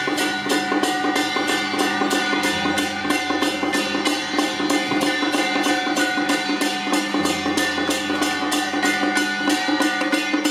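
Music with a steady beat of sharp percussion strokes, about four a second, over sustained melody notes and a bass line that changes pitch every few seconds.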